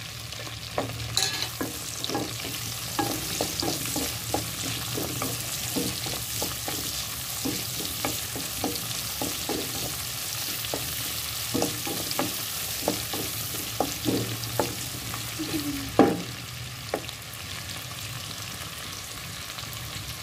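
Sliced onions sizzling as they fry in hot oil in a kadai, with a spatula scraping and clicking against the pan as they are stirred. One louder knock comes about 16 seconds in.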